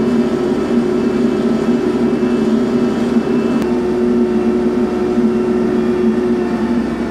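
Diesel engine of a TYM T574 compact loader tractor running at a steady speed as the tractor drives past, a loud even drone that holds one pitch.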